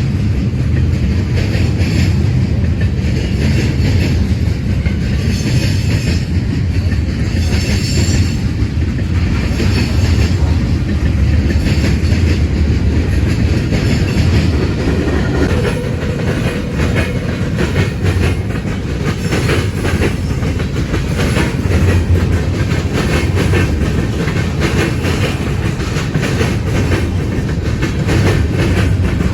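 Cars of a BNSF manifest freight train rolling past, a steady rumble with wheels clicking over the rail joints.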